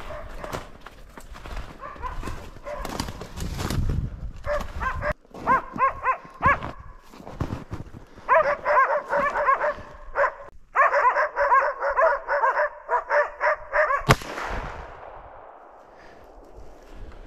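Hunting laikas barking fast and continuously, typical of dogs holding a moose at bay. About 14 seconds in comes one loud rifle shot that echoes and fades. Steps crunch through snowy brush before the barking starts.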